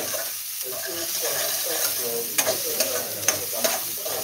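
Garlic and chopped vegetables sautéing in a stainless steel pan, a steady sizzle while a metal spoon stirs them. The spoon knocks and scrapes against the pan about four times in the second half.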